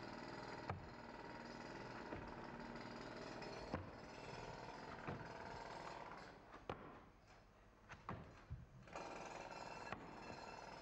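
Steady hiss with a handful of sharp knocks as hands slap onto and grip the wooden rungs of a climbing training board.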